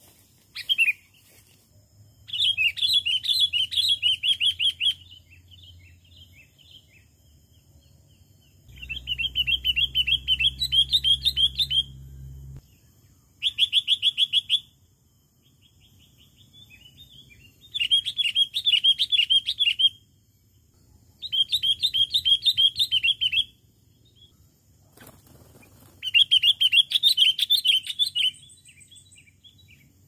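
Sooty-headed bulbul calling in six bursts of rapid, chattering notes, each two to three seconds long, a few seconds apart.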